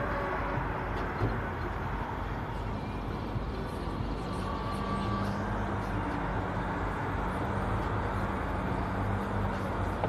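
A motor vehicle's engine running steadily over a constant outdoor noise, with a low, even hum from about four seconds in until near the end.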